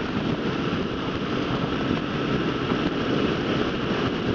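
Kawasaki KLR650 single-cylinder motorcycle running at road speed in a strong crosswind, with wind roaring over the microphone as an even rush of noise.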